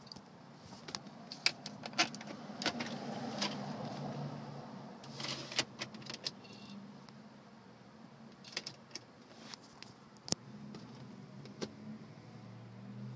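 Scattered sharp plastic clicks and knocks of a Porsche Cayenne S's interior trim being handled, its centre console drawers and storage compartments opened and shut, over a low steady hum.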